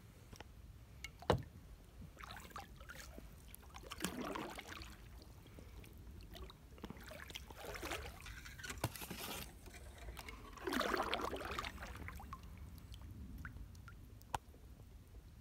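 Kayak paddle strokes in calm water: a swish of the blade with trickling drips comes four times, every few seconds. A few sharp knocks fall between them, the loudest about a second in.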